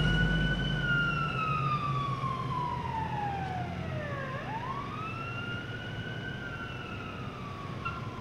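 Ambulance siren wailing slowly, falling, rising again about four seconds in, then falling, and growing fainter as the ambulance drives away. A low engine rumble dies away in the first second.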